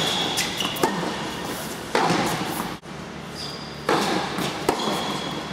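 Tennis rally: sharp racquet-on-ball hits and ball bounces, spaced about a second or two apart, echoing in a large indoor hall.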